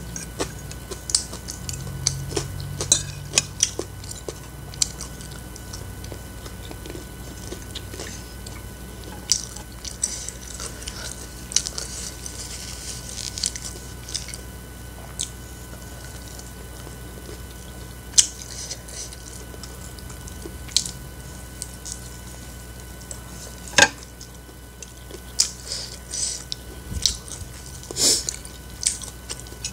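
Close-up eating sounds: chewing of fried instant noodles and crispy fried chicken, with many short wet mouth clicks and crackles and now and then a sharper click or knock.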